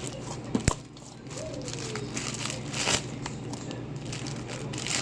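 Slime being handled and squeezed, making crinkly crackling sounds with a sharp click a little under a second in.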